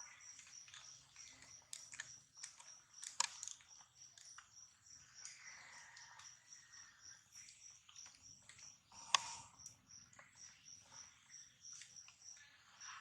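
Insect chirping in a high, even pulse, about three chirps a second, with a few sharp clicks or snaps, the loudest about nine seconds in.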